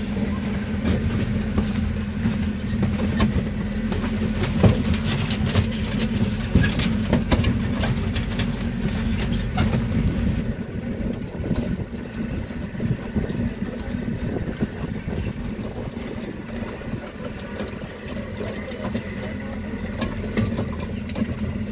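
A tourist road train's engine running steadily under way, with many rattles and knocks through the first half.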